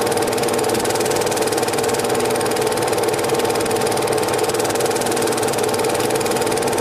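Cine film projector running: a steady mechanical whir with a fast, even clatter of the film transport, unchanging throughout.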